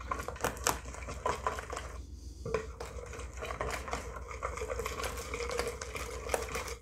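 Wire whisk beating eggs into pancake batter in a mixing bowl: fast, continuous clicking and scraping of the wires against the bowl, with a short pause about two seconds in.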